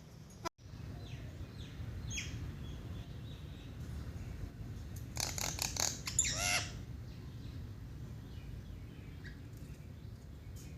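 Small birds chirping, with a burst of loud, rapid chirps about halfway through, over a steady low rumble.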